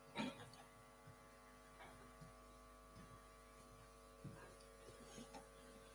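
Near silence: a faint steady electrical mains hum, with a couple of faint brief sounds.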